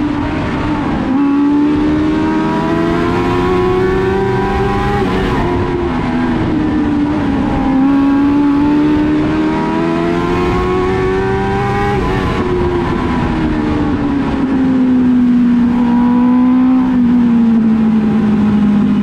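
Race car engine running hard around a short oval track. The pitch climbs steadily twice, dropping sharply each time as the engine backs off, then sinks slowly over the last several seconds.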